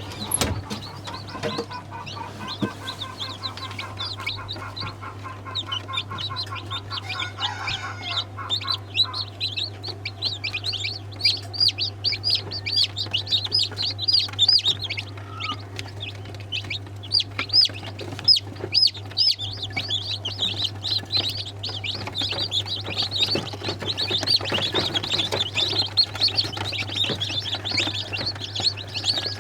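A flock of chickens clucking and calling, over a dense run of rapid high-pitched chirps and a steady low hum.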